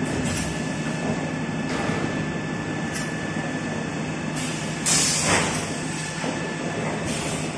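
Toilet paper and kitchen towel converting line running: a steady mechanical rumble with a constant hum and a thin steady tone, and a brief louder hiss about five seconds in.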